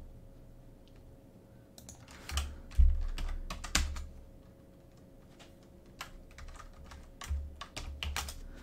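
Typing on a computer keyboard: irregular clusters of key clicks, with a few dull low thumps mixed in, the loudest about three seconds in and more near the end.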